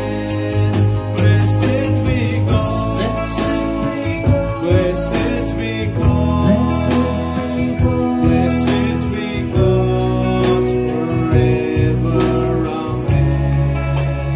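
Offertory hymn: singing with instrumental accompaniment over sustained bass notes and a steady beat.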